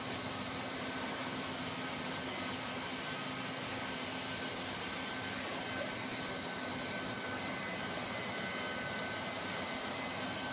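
Handheld hot-air welder's blower running steadily, a constant rushing hiss with a steady hum, as its nozzle heat-welds a patch onto white single-ply roofing membrane.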